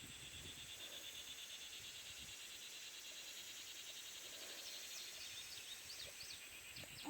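Faint, steady insect chorus: a high, finely pulsing buzz, with a few quick high chirps in the second half.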